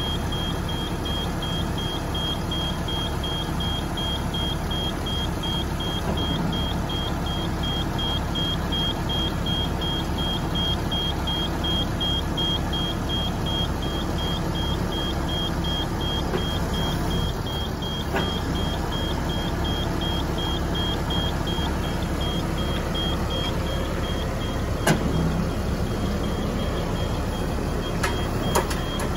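DAF LF truck's diesel engine running steadily, driving the Terex Atlas crane's hydraulics as the boom telescopes out, under a repeating short high warning beep that stops near the end. A few sharp clicks come in the last few seconds.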